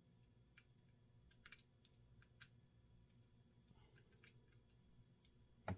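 Faint, scattered small clicks and ticks of a Penn 430SS spinning reel's metal parts and a small screwdriver being handled and fitted together during reassembly, with a louder click near the end.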